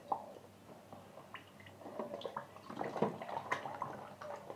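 Raw chicken pieces being washed by hand in a plastic bowl of water: scattered small splashes, drips and knocks against the bowl, busier in the second half.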